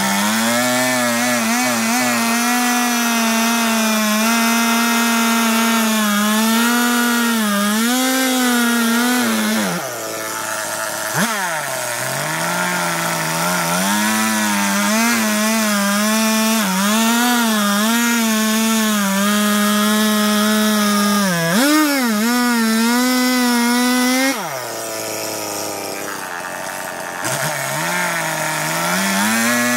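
Chainsaw running at high revs as it cuts into a log, its pitch dipping and wavering under the load of the cut. It drops back to idle about ten seconds in and again for a few seconds near the end, revving up again each time.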